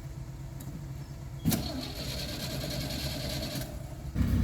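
A vehicle's electric starter whirring, with a sharp click about a second and a half in, then a louder low engine sound coming in near the end.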